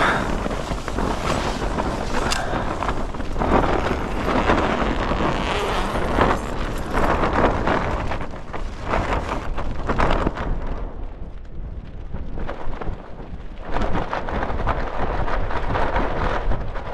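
Strong gusting wind rumbling on the microphone and rattling the fabric of a Hilleberg Soulo tent as its door is opened. The wind dips in a brief lull about two-thirds of the way through, then another gust hits.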